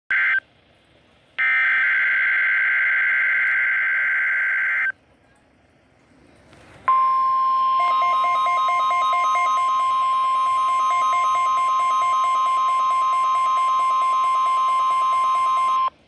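NOAA Weather Radio Required Weekly Test played through a Midland weather alert radio. It opens with a short burst and then a longer burst of the digital SAME header screech. About seven seconds in, the steady 1050 Hz warning alarm tone begins, and about a second later a rapid pulsing alert beep joins it; both run until they cut off together at the end.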